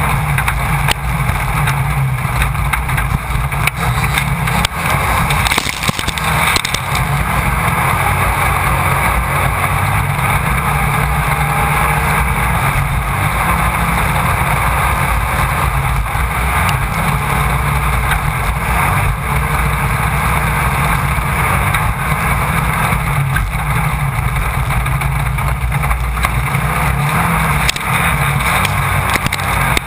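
Onboard sound of a Class 1600 off-road race car at speed: the engine running hard and loud without letting up, with scattered knocks and clicks from the car over rough ground.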